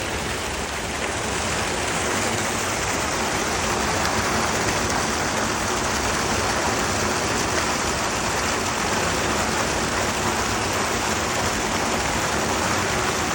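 Steady rush of water flowing through a channel swollen after a typhoon, growing slightly louder about a second and a half in.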